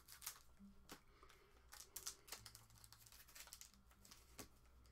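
Faint crinkling of foil trading-card pack wrappers, with scattered soft clicks as the packs are snipped with scissors and handled.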